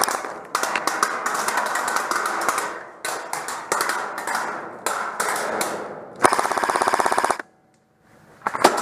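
Airsoft guns firing in rapid full-auto strings, several bursts back to back; the last one stops abruptly about seven and a half seconds in.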